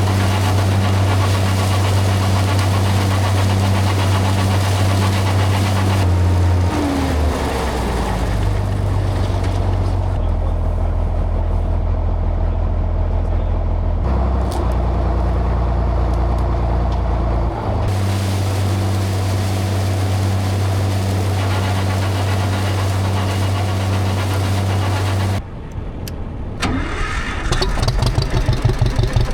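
Tractor engine running at a steady speed, its pitch and load shifting a few times. Near the end it drops away and a throbbing, evenly pulsing engine idle takes over.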